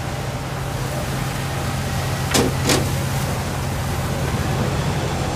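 Steady low drone of a crab boat's engine and deck machinery under a hiss of sea and spray while a crab pot is hauled aboard, with two short knocks about two and a half seconds in.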